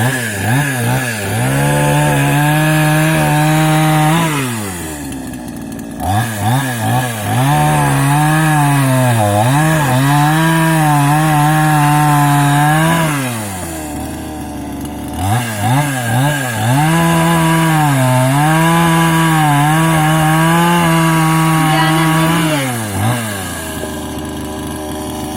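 Lider RC-52 two-stroke petrol chainsaw revved a few times, then run at full throttle through three cuts in firewood, its engine note sagging and wavering under load and dropping back toward idle between cuts and near the end.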